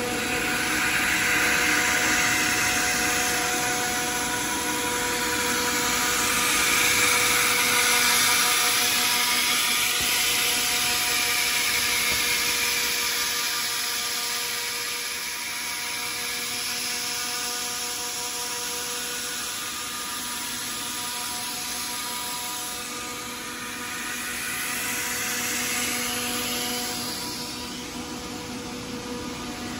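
Deburring machine running, its motors giving a steady whine of several tones, while it removes slag from laser-cut metal parts with a hissing scrape that swells and fades.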